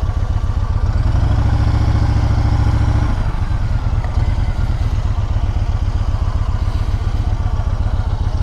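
Motorcycle engine running at low revs, the revs raised for about two seconds starting about a second in, then settling back to a steady low pulse.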